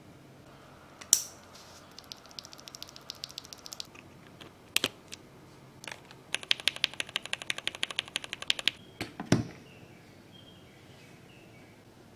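Typing on a Darmoshark K8 gasket-mount mechanical keyboard: two runs of rapid keystrokes, with a few louder single key presses between them and two heavier knocks near the end.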